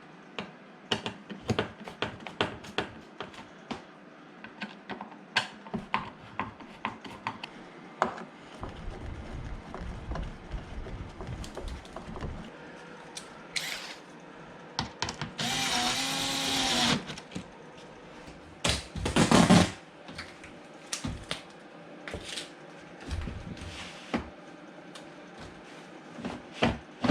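Cordless power driver running screws in, about two seconds midway and again briefly a couple of seconds later, amid scattered clicks and knocks of parts being handled.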